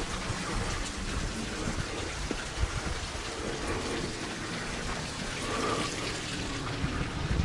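Steady rushing, crackling noise on a small action camera's microphone as it is carried along outdoors: wind and rubbing on the camera, with a few low thumps.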